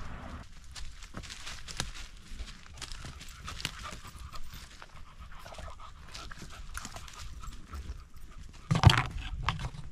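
Mini shar pei panting close to a harness-mounted camera as she trots over leaf litter and twigs, her steps crackling irregularly. A loud bump near the end.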